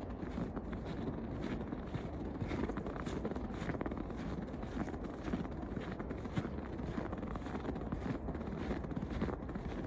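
Footsteps crunching in fresh snow at a steady walking pace, about two steps a second, over a steady low rumble of wind on the microphone.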